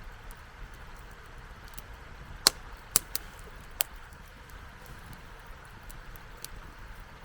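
Wood campfire burning with a steady hiss and faint ticking, broken by four sharp crackling pops in close succession midway through.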